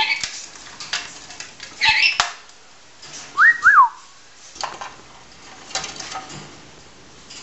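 Lorikeet splashing in its water dish, with scattered small splashes and flutters, a short harsh chirp about two seconds in, and two quick whistled notes, each rising then falling, about a second and a half later.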